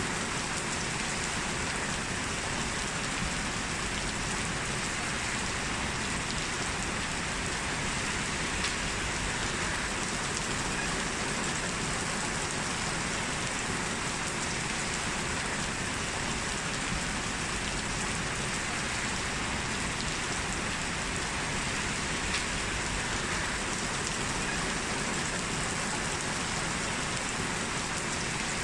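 Heavy rain falling steadily, with an even hiss and a few sharp drop ticks here and there.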